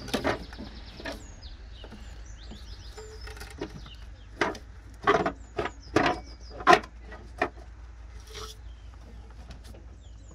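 Sharp knocks and clacks of hand tools and parts being worked on an engine, about eight of them, bunched between about four and eight seconds in. Small birds chirp repeatedly in the background.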